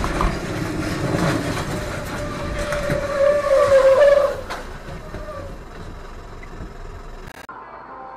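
A tractor-trailer running off a wet highway, heard from a following vehicle's dash cam: steady road and spray noise with a wavering screech that swells to its loudest about three to four seconds in, then fades. Near the end it cuts suddenly to a quieter steady vehicle hum.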